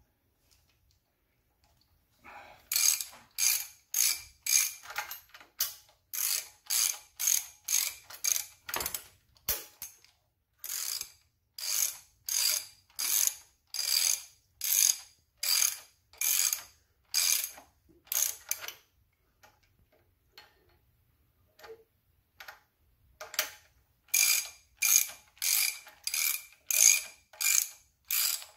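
Ratcheting wrench clicking in quick back-and-forth strokes, about two or three a second, as it runs down the flywheel bolts and draws the flywheel onto its dowel pins. The strokes stop for a few seconds about two-thirds of the way through, then start again.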